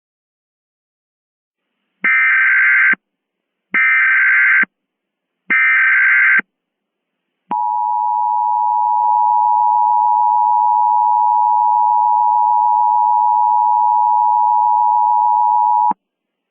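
Emergency Alert System tones: three bursts of SAME header data, each about a second long, then the steady two-tone EAS attention signal held for about eight seconds. The sequence announces a new emergency alert.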